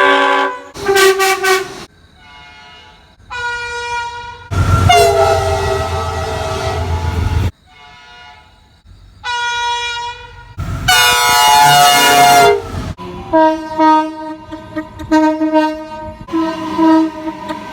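Train air horns sounding one after another in short cut-together clips, each a chord of several notes at a different pitch. Under one long blast there is the rumble of the passing train. Near the end comes a run of short blasts.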